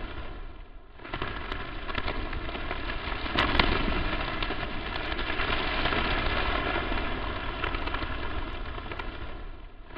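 Crackling static noise: a dense hiss with sharp pops and crackles through it, dropping away briefly about half a second in and again near the end.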